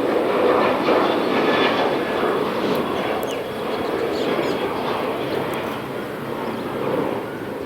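Jet airliner's engines running at takeoff power, a steady roar that slowly fades toward the end as the plane moves away.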